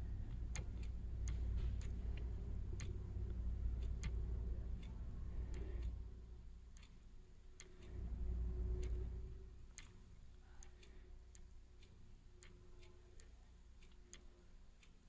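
Faint, regular clicks, about one every three-quarters of a second, as the Next key on a Honeywell VisionPRO 8000 touchscreen thermostat is tapped again and again. A low rumble sits under the clicks in the first half.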